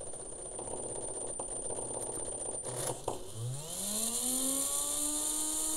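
Home-built 3D-printed three-phase brushless motor, its magnet rotor turning on a bare drill-bit shaft with no bearings, driven by a hobby speed controller. It rattles and clicks at first, then about three seconds in spins up: a humming whine rises quickly in pitch and then holds steady.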